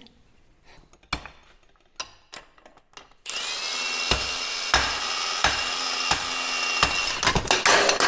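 Impact wrench spinning a socket on a steering rack's pinion, starting about three seconds in and running steadily for about four and a half seconds with a high whine, a sharper knock repeating about every 0.7 seconds. A few light clicks come before it.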